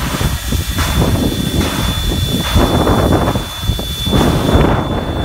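Standing New Zealand Ab-class steam locomotive 608 hissing steam from near its cylinders, with a thin steady high-pitched tone over the hiss. Wind buffets the microphone.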